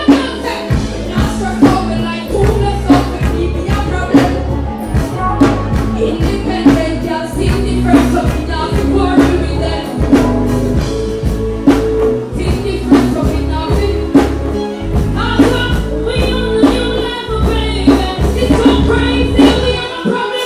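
Loud live dancehall music through a concert sound system: a heavy bass line and a steady drum beat, with a woman's voice singing into a microphone over it.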